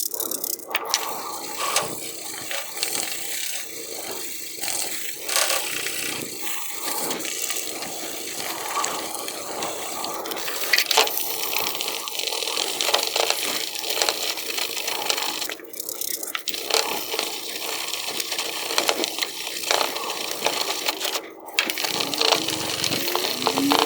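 Wet 2000 grit sandpaper rubbed in circles over a 2013 Honda Accord's plastic headlight lens: a steady scrubbing hiss, broken by two short pauses in the second half.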